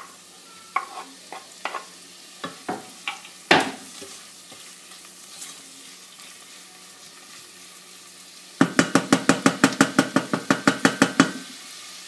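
Chorizo scraped off a wooden board into a stainless steel pot of onion and garlic frying in oil, with several sharp knocks against the pot in the first few seconds; the oil sizzles softly underneath. Near the end the pot is stirred fast, the utensil clacking against the pot at about six strokes a second for under three seconds.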